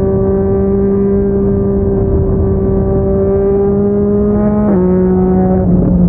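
Yamaha MT-09's three-cylinder engine through a Yoshimura R55 slip-on exhaust, pulling steadily under way with its note slowly rising. Nearly five seconds in the pitch drops sharply as it shifts up a gear.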